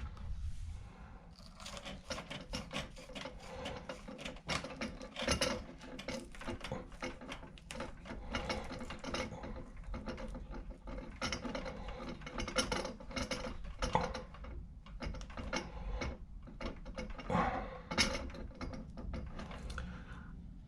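Small electrical wire ends being twisted together by hand: a busy run of small irregular clicks and scrapes of wire strands rubbing and snapping against each other.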